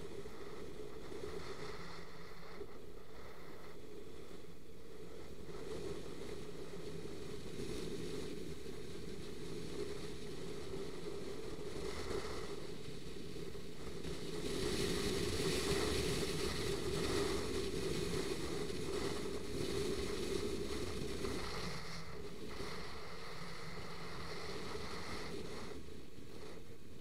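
Steady wind rushing over the microphone with road noise from a moving motorcycle or scooter, louder for several seconds around the middle.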